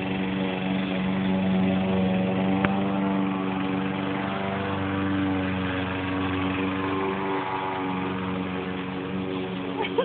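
Gas push lawn mower engine running steadily at full throttle while mowing, with one brief click a few seconds in.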